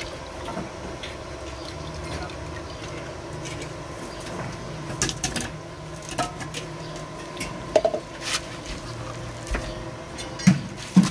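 Scoop and hands working in a small metal pail as liquid Flexibond waterproofing is poured onto cement and mixed: scattered clinks, knocks and scrapes of the scoop and hand against the pail, the sharpest few near the end.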